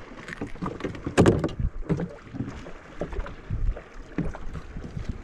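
Water slapping against a small boat's hull, with irregular low wind rumble on the microphone and scattered knocks, the loudest a sharp knock about a second in.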